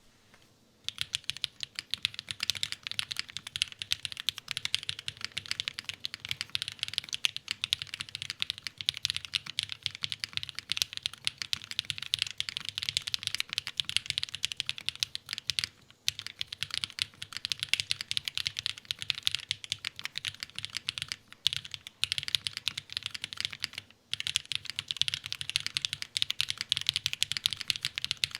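Fast typing on a custom 60% mechanical keyboard with lubed KTT Rose linear switches, GMK keycaps and a carbon fibre plate: a dense run of keystroke clacks starting about a second in, with brief pauses around the middle and again about two-thirds through.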